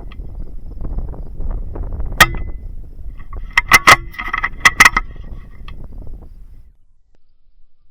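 Several sharp metallic clicks with a short ring, the later ones in two close pairs, over a low rumble that fades out near the end.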